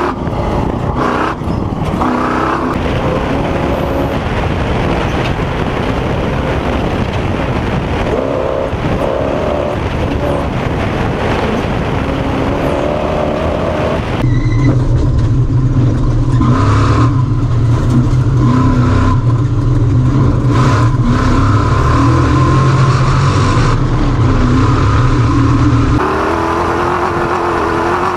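Off-road race vehicle's engine running hard under load, its pitch rising and falling again and again as it revs and shifts, heard from on board. About halfway through the sound switches abruptly to a heavier, deeper drone for around twelve seconds, then switches back.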